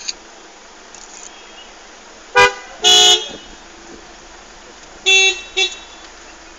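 A vehicle horn honking four times: a short toot, then a longer one, then two short toots near the end, loud over a steady background hiss.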